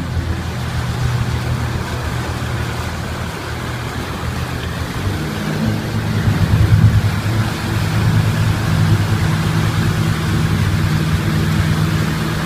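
Motorboat engine running steadily under way, over the hiss of the churning wake and wind; the engine hum gets stronger about five seconds in.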